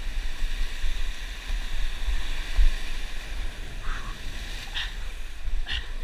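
Surf breaking and washing over the rocks below, a steady hiss, with wind buffeting the microphone in a low rumble.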